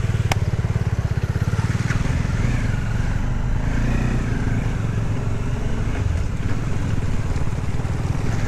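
Motorcycle engine running steadily while riding, with an even low pulsing throb and a sharp click about a third of a second in.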